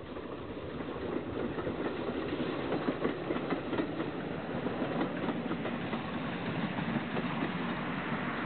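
Industrial saddle-tank steam locomotive hauling a train past, with exhaust and the clatter of wheels on the rails.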